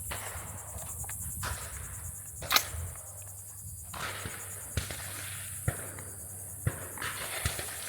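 One sharp gunshot crack about two and a half seconds in, followed by several fainter short clicks and knocks, over a steady high hiss of insects.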